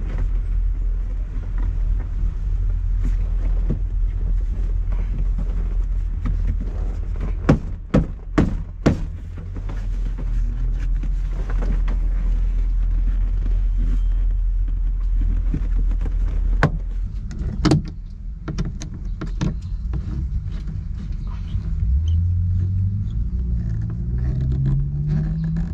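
Steady low rumble of a motor vehicle, with a few sharp knocks about eight seconds in and again later as a vinyl door panel's clips are pushed into a Beetle's rear quarter panel. Near the end an engine note rises in pitch.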